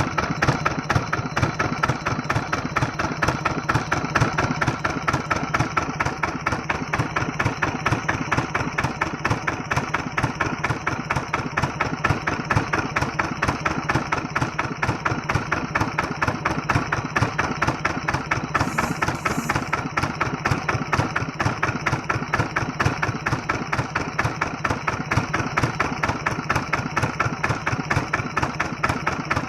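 Old diesel engine running steadily at idle, with an even, fast beat; despite its age it runs normally.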